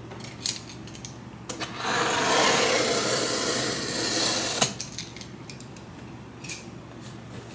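Corrugated cardboard shipping box being opened by hand: a few light taps, then about two and a half seconds of cardboard rubbing and scraping that ends in a sharp tap, followed by a few faint knocks.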